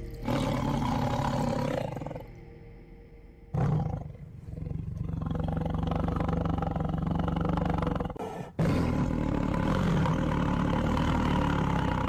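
Tiger roaring: three long, low calls with short breaks between them.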